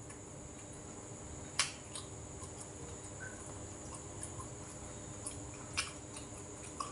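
Quiet eating at a table: a few short sharp clicks of chopsticks and a spoon against a bowl, the loudest about one and a half seconds in and a couple more near the end, over a steady faint hum.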